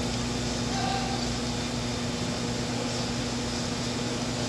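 Steady room tone of a large hall: the even hiss of air handling with a low, constant electrical hum beneath it.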